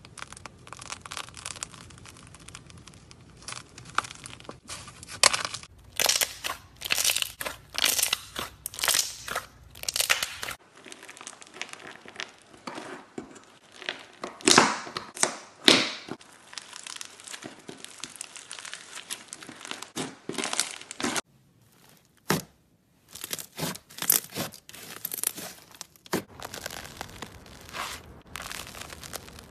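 Slime being pressed, poked and squeezed by hand and with a small metal tool, giving rapid runs of crackling pops and crunches as trapped air bubbles and foam beads burst. The sound changes character at two clip cuts, about ten and twenty-two seconds in.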